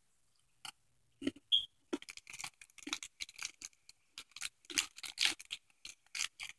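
Plastic snack wrapper inside a cardboard cookie box crinkling and rustling as a hand rummages in it, in a quick run of crackles starting about a second in.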